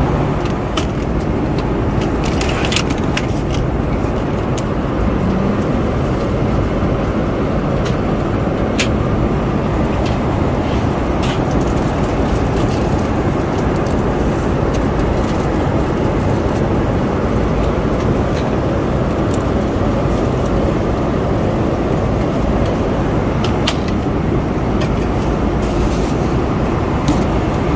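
Steady cabin noise of an Airbus A330-300 airliner in flight: a constant low roar of engines and airflow, with a few light clicks scattered through it.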